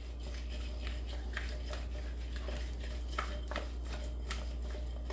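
Potato wedges being tossed in a bowl: small irregular knocks and slides of the wedges against the bowl, over a steady low hum.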